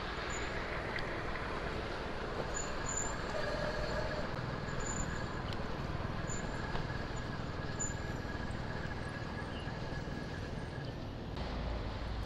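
Steady traffic and road noise heard while riding an electric bicycle along city streets: a continuous hiss, with a faint high whine that fades out near the end.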